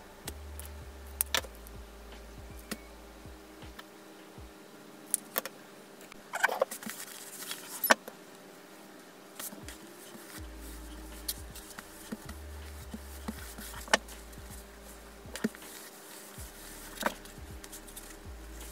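Fabric and small sewing tools being handled on a worktable: scattered sharp clicks and taps, with a short rustle about six and a half seconds in, over a faint steady hum.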